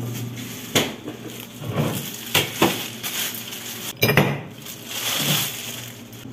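Ice cubes clinking against a thick glass tumbler as they are put into it: a series of sharp separate clinks, the loudest cluster about four seconds in.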